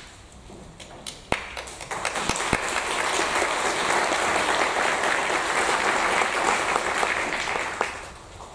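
Audience applauding: a few scattered claps at first, building about two seconds in to dense, steady applause that dies away near the end.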